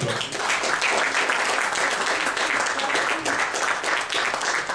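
Live audience applauding at the end of a song, a dense, steady clapping.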